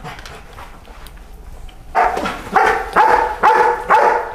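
Belgian Malinois barking, about five sharp barks in quick succession starting about two seconds in.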